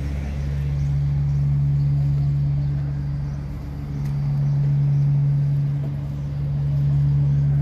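Steady low hum of an idling engine, holding a fixed pitch while its level slowly swells and eases.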